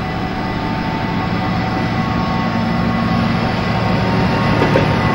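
Diesel locomotive hauling a container train, its engine running with a low rumble and rail noise that grows louder as it approaches, with thin steady high tones over it.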